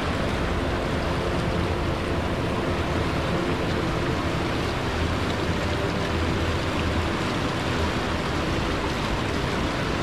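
Steady rushing of a fast river pouring over a weir.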